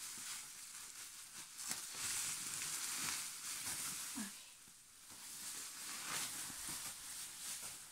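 Bubble wrap crinkling and rustling as it is handled and pulled away, a dense crackle of small plastic clicks.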